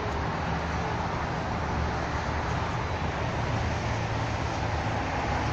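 Steady outdoor city background noise: a low rumble with an even hiss over it, unchanging throughout.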